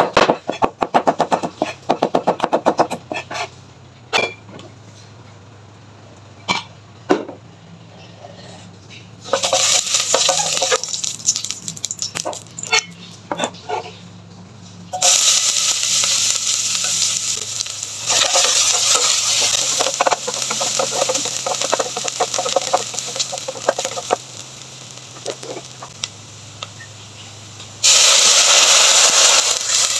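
Knife rapidly chopping garlic on a plastic cutting board, then a few scattered knocks. From about a third of the way in, chopped onion and garlic sizzle in hot oil in a stainless steel pot, louder after a second batch goes in. Near the end, water is poured into the pot with a loud rush.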